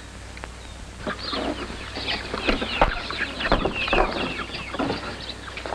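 Chickens clucking, many short calls overlapping from about a second in.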